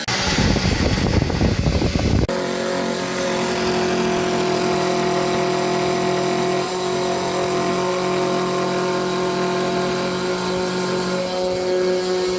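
A home-built CNC machine's motors running: a loud, rough noise for about two seconds, then after an abrupt change a steady, even-pitched motor hum.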